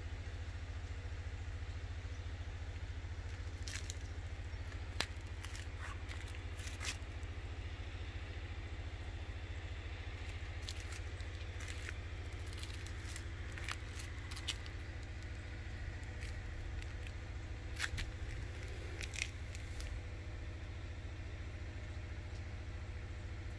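A cat biting and tugging at a small dead bird's body and feathers: scattered soft crackles and crunches come and go through the middle, with a few sharper clicks. Under it runs a steady low rumble.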